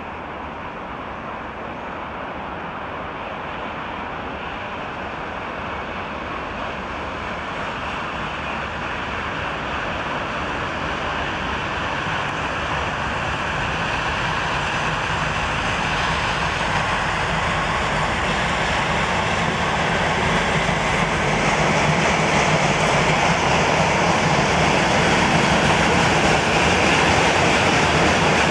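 2TE10UK twin-section freight diesel locomotive's two-stroke diesel engines running as it hauls a train of tank cars, together with the rumble of wheels on the rails. The sound grows steadily louder as the train approaches and passes.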